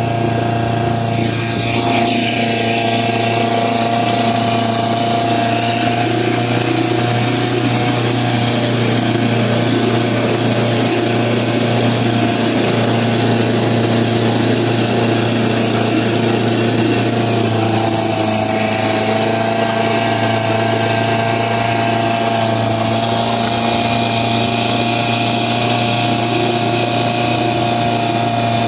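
Evinrude tiller outboard motor running steadily at speed, pushing a small boat along, with water churning in its wake. Its pitch drops a little about two-thirds of the way through, then holds.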